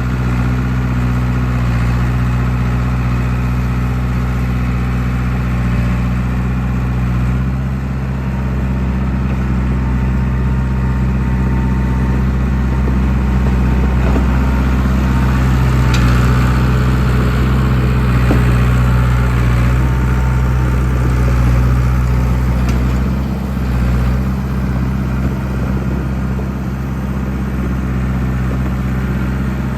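John Deere 450B crawler bulldozer's diesel engine running steadily, its note swelling a little around the middle.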